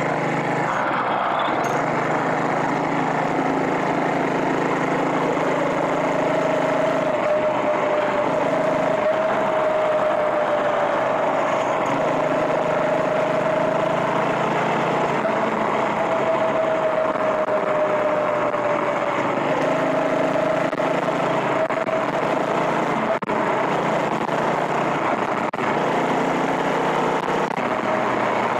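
Small gas engine of a motorized bicycle running steadily while riding, a constant hum with a higher whine that wavers slightly in pitch.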